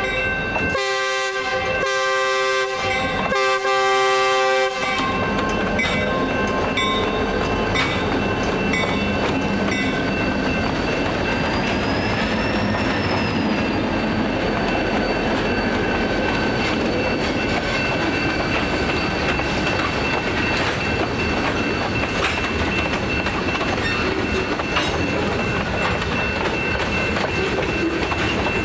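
Locomotive horn of an Austin Western Railroad freight train sounding four blasts that end about five seconds in, then the train rolling past at low speed, a steady rumble with wheels clicking over the rail joints.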